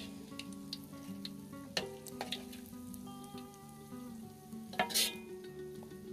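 Battered tofu (tahu walik) deep-frying in hot oil in an aluminium wok, sizzling and crackling steadily. A few sharp metal clinks come from the spatula and wire skimmer against the wok, the loudest pair about five seconds in.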